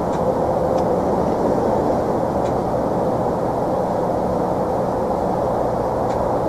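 A steady, unbroken low droning hum of unknown origin, with a constant pitch and no pulsing, which the person recording it finds strange.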